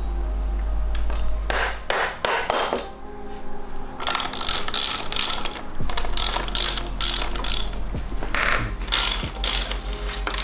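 Several bursts of rapid ratcheting clicks with short pauses between them, from a pawl-and-ratchet mechanism as the mountain bike is being taken apart.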